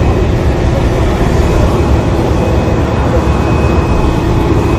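Turbine noise from a parked Boeing 747 jetliner: a loud, steady low rumble with a thin steady whine above it.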